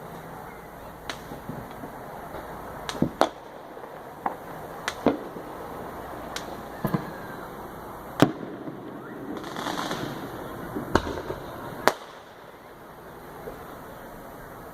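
Fireworks going off: a dozen or so sharp bangs at uneven intervals, the loudest about eight seconds in, with a short burst of crackling around ten seconds.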